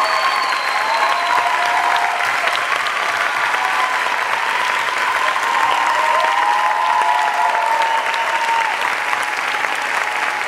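Audience applauding steadily at the end of a dance performance, with the performers clapping along.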